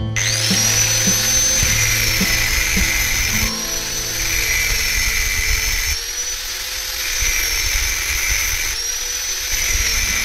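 Electric power tool motor spinning up with a quickly rising whine, then running with a high whine that wavers in pitch as it is loaded, over background music.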